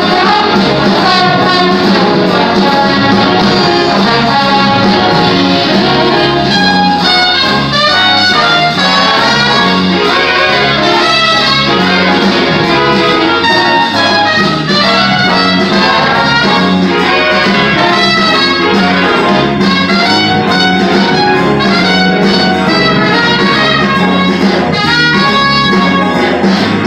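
Big band playing a jazz blues: saxophones, trumpets and trombones over drums and guitar.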